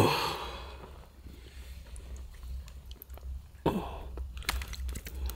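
Close-up wet handling noises: hands gripping a freshly caught Arctic grayling and working the hook out of its jaw. A sudden rush of noise at the very start fades over about a second, and a few sharp clicks come near the end.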